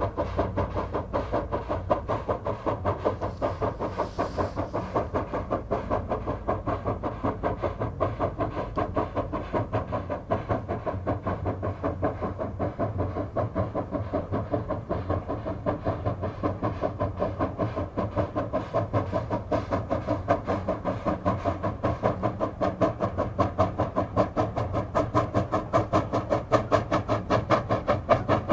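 Steam locomotive working steadily, its exhaust beating in an even, fast rhythm of about four chuffs a second.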